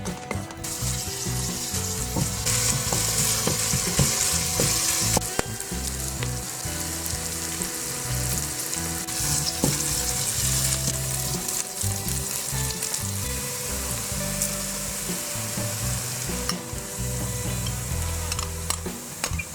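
Food frying in a hot pan, with a steady sizzle that swells and eases several times. A utensil stirs and taps against the pan now and then.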